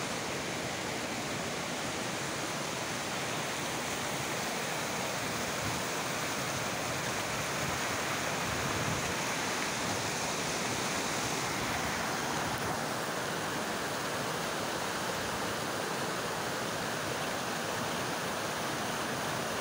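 Waterfall: a steady rush of falling water, its high hiss easing slightly about two-thirds of the way through.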